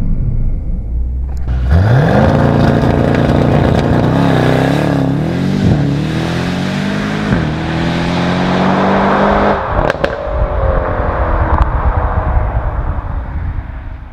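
Mercedes-AMG E63 S's twin-turbo V8 engine revving up sharply about two seconds in, then running at high revs under load with road and wind noise, its note changing near ten seconds in and dying away at the end.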